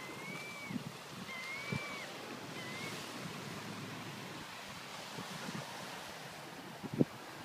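Small waves washing onto a pebbly shore, with wind on the microphone. A bird gives three short rising-and-falling calls in the first three seconds, and there is a thump near the end.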